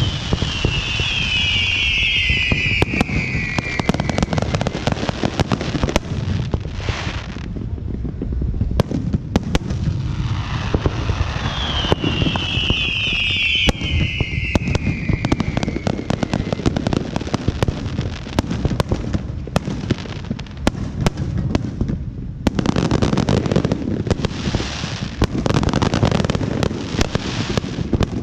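Fireworks going off without pause: dense crackling pops and bangs. Twice a whistle falls in pitch over a few seconds, once at the start and again about twelve seconds in.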